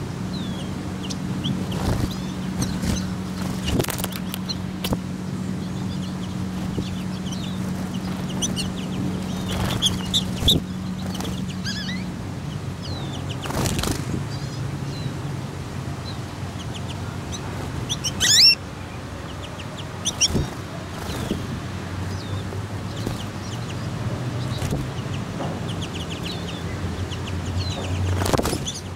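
American goldfinches at the water's edge: many short, high chirps and twitters scattered throughout, with occasional wing flutters and one loud brief burst about two-thirds of the way in. A steady low hum runs underneath and drops in pitch partway through.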